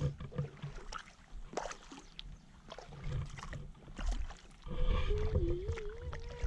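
Kayak paddling: paddle blades dipping and splashing in the water with irregular drips and a low rumble of handling. About five seconds in, a steady wavering hum starts and carries on.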